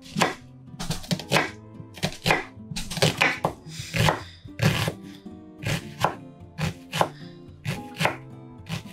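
Knife chopping vegetables into small dice on a cutting board, with sharp irregular strikes about two or three a second, over background music.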